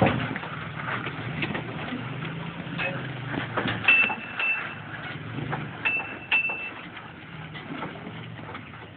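Toyota Tacoma crawling over boulders: the engine running low and steady, with scattered knocks and creaks as the truck works over rock. Short high squeaks come in pairs about four and six seconds in.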